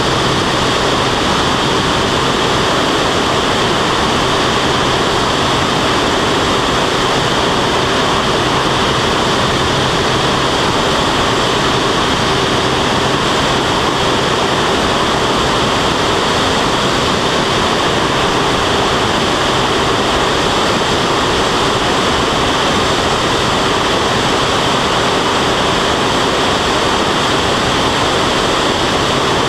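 Steady rush of airflow over a wing-mounted camera on an aerobatic biplane in flight, with the piston engine's low hum running steadily underneath.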